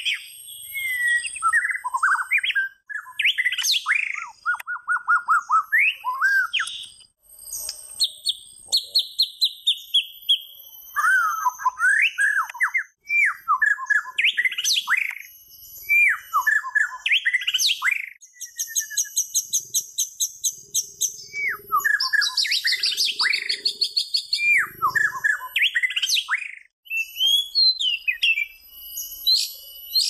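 White-rumped shama singing: a varied run of clear whistled phrases, up- and down-sliding notes and fast high trills, broken by short pauses.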